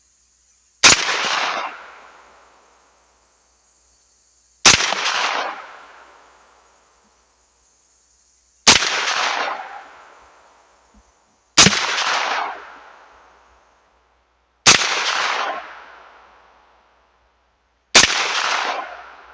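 Bear Creek Arsenal BC9 Bufferless 9mm carbine firing six single aimed shots, one every three to four seconds. Each sharp crack trails off in an echo lasting about a second and a half.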